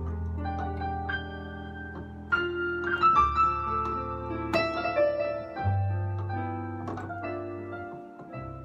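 Improvised keyboard music played on a three-manual electronic organ: held bass notes under shifting chords and a scattered melody, getting quieter toward the end.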